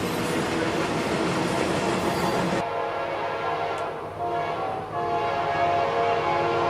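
Freight train cars rolling past, then the sound cuts off abruptly and gives way to a diesel locomotive's horn sounding a steady multi-note chord.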